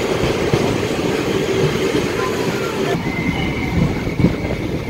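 Passenger train coach rolling slowly into a station, heard from its open door: a steady rumble of wheels on rail with irregular knocks. From about three seconds in, a thin, high wheel squeal runs under it as the train slows.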